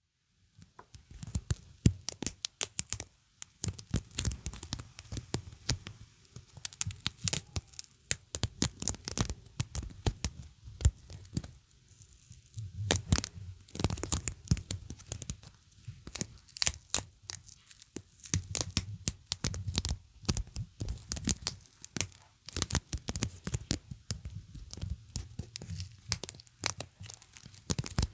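Close-miked sticky sounds: a tacky surface pressed and peeled apart, giving clusters of sharp crackling pops with brief pauses between them.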